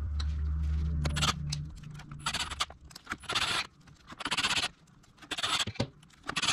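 Cordless drill/driver spinning the clutch spring screws into the pressure plate in short bursts of about half a second, several in a row with pauses between, each screw only run in lightly. A low steady hum stops about a second in.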